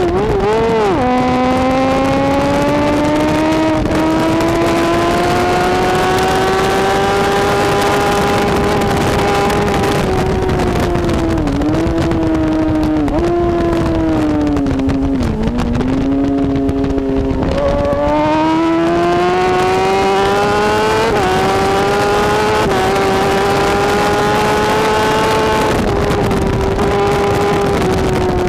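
BMW S1000RR superbike's inline-four engine at high revs, picked up by the bike's own onboard camera at racing speed, over a steady rush of noise. The pitch climbs in long pulls, drops sharply about a second in, dips briefly a few times in the middle as the throttle is eased, then climbs again.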